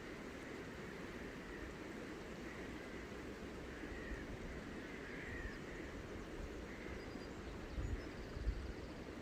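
Outdoor ambience: a steady low rushing noise, with faint bird chirps and a couple of low bumps near the end.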